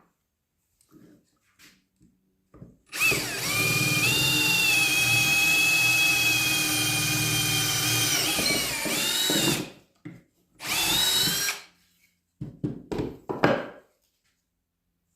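Power drill boring a test hole in wood with a 13/32-inch bit: one steady run of about six and a half seconds with a whine, then a second short run of about a second. A few light knocks follow near the end.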